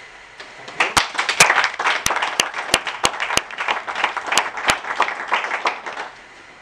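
Small audience applauding, starting about a second in, with a few sharp claps standing out close by, and dying away near the end.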